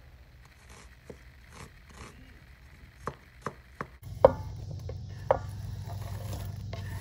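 Chef's knife dicing red onion on a bamboo cutting board: irregular knife taps on the wood. From about four seconds in a steady low hum comes up under a few louder knocks of the knife on the board.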